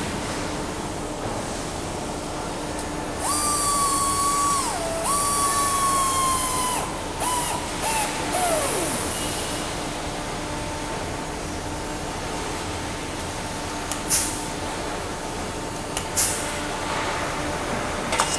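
Pneumatic strapping tool tensioning a strap around a coil of slit steel strip. Its air motor runs with a high whine and hiss for about six seconds, dips in pitch once, then winds down. Two short sharp bursts follow later, over a steady factory machinery hum.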